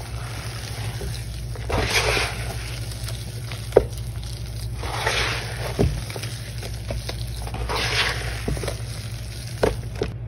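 Hands squeezing and kneading a thick wet paste of Ajax cleaning powder: a squishing, crumbling rush that swells about every three seconds, with a few sharp wet pops between. A low steady hum runs underneath.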